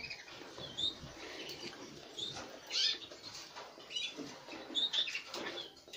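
Faint, short high chirps from canaries, a few scattered through, over soft rustling as a small bird is held and handled.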